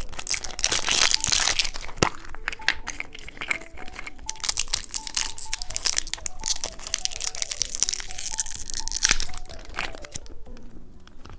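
Crinkling and tearing wrapper of a surprise egg being unwrapped by hand, with many sharp crackles.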